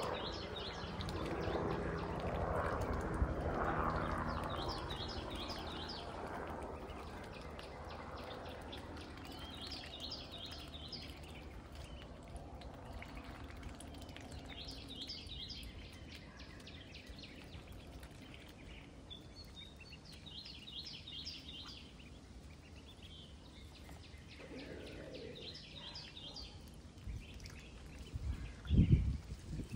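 Outdoor farmyard ambience: a wild songbird repeats a short, high, chirping phrase every few seconds over a low steady background. There is some rustling noise in the first few seconds and a few loud low thumps near the end.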